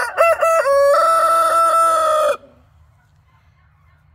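Brahma rooster crowing loudly: a few short broken notes, then one long held note that stops about two and a half seconds in.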